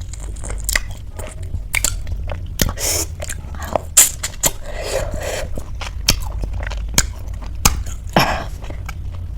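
Close-miked chewing and biting of crisp chaat snacks, many sharp irregular crunches in the mouth, over a steady low hum.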